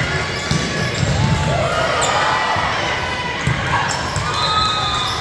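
Indoor volleyball rally: sneakers squeak on the hardwood court, the ball is struck now and then, and players call out, all echoing in the gym.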